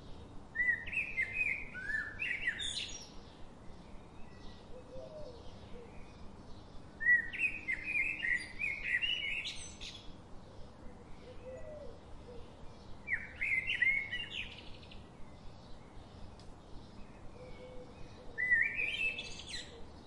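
A songbird singing four short warbled phrases, each two to three seconds long and ending higher than it starts, a few seconds apart. Faint, short, high chirps repeat several times a second in between.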